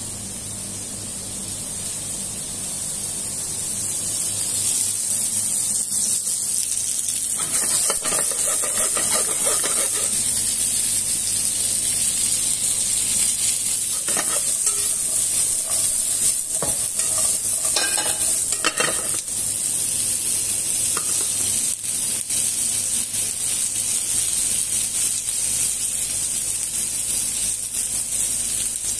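Chopped vegetables (zucchini, carrots, peppers) sizzling in hot oil in a frying pan, the sizzle growing louder over the first few seconds and then holding steady. The vegetables are stirred in the pan, with stretches of scraping and clattering about eight to ten seconds in and again from about fourteen to nineteen seconds.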